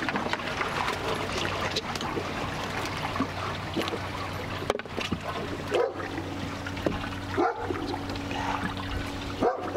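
A dog barking a few times, over a steady low hum and water trickling.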